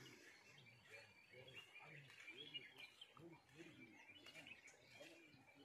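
Near silence with faint bird chirps and faint distant voices.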